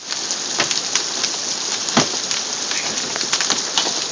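Hail and heavy rain pelting down: a dense, steady hiss with scattered sharp clacks of individual hailstones striking hard surfaces.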